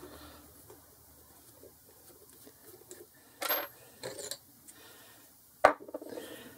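Metal clinks as the bolts on the back of a 4-jaw chuck are undone and handled: a ringing clink about halfway through, a smaller one just after, then a sharp click and light metal clatter near the end.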